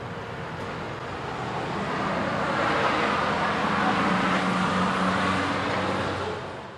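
Front-loader garbage truck's engine pulling away, its sound building over the first few seconds as the truck drives off, then fading out near the end.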